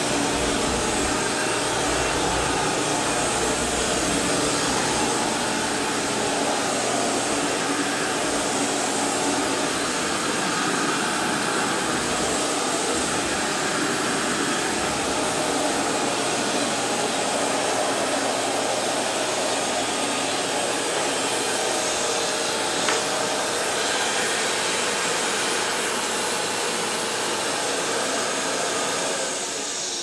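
Kenmore Progressive upright vacuum cleaner running steadily as it is pushed over a hard vinyl floor, its motor making a loud, even whoosh with a faint hum in it. A single small click comes about two-thirds of the way through, and the sound starts to drop away near the end.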